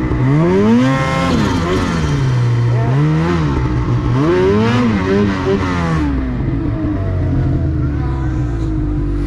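Snowmobile engine revving up and down repeatedly while riding through snow, its pitch rising and falling every second or so, then running steadier after about six seconds.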